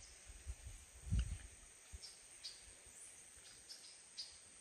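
Faint rainforest ambience: scattered short, high bird chirps over a thin, steady, high insect hum. A few soft low thumps of camera handling, the strongest about a second in.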